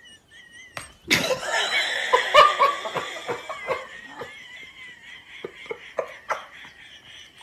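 People laughing: a sudden outburst of laughter about a second in, coming in short repeated bursts that taper off over the following seconds.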